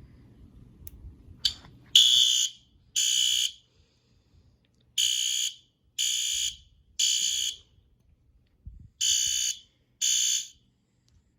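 Fire alarm horn strobe (System Sensor SpectrAlert Advanced P2R, set to code 3) sounding a drill: half-second horn blasts a second apart, in groups of two, three and two with longer pauses between. It stops after the seventh blast.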